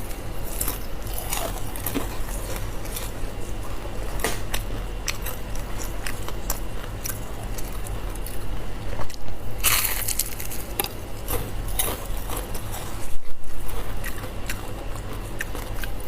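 Close-miked biting and chewing of crisp fried food, with irregular crunches and crackles and a few louder bites, over a steady low electrical hum.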